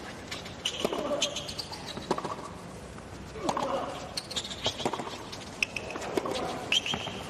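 Tennis rally on a hard court: racket strikes on the ball trading back and forth roughly every one to one and a half seconds, with sharp sneaker squeaks on the court surface.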